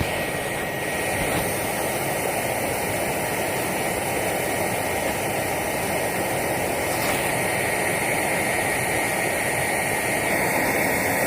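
Electric air blower forcing air into a homemade metal foundry, a steady rushing roar with a constant high whine, the furnace being run hot to melt aluminum.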